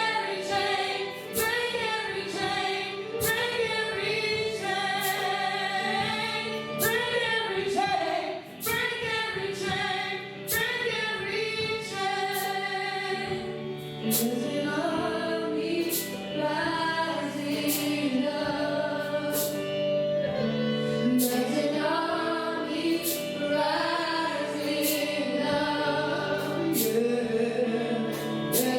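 Worship song: voices singing a melody over steady accompaniment with a regular beat.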